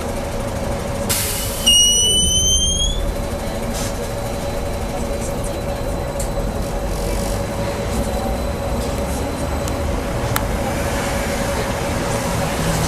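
Interior of a BKM 43300D trolleybus under way: a steady hum and low rumble throughout. About a second in there is a brief hiss, followed right away by a short rising squeal.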